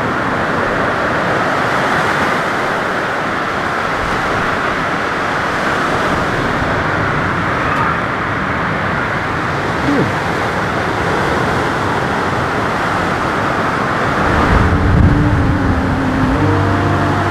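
A loud, steady rushing noise, with music coming in near the end.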